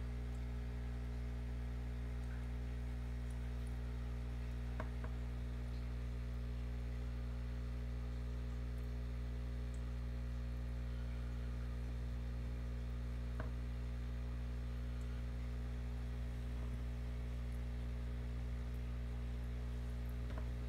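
Steady low electrical hum, with a couple of faint clicks.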